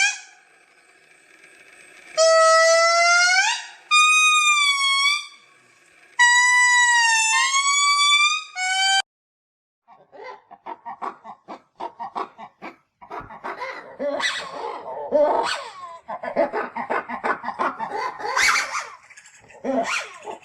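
Lemur vocalisations used as Plesiadapis creature sound effects. Four loud, high wailing calls in the first nine seconds, some sliding up or down in pitch. After a brief silence come rapid chattering, clicking and grunting calls.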